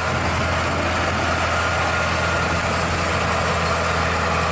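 Diesel engine of a Scania truck pulling two loaded tipper trailers, running steadily with a low hum over an even rush of noise.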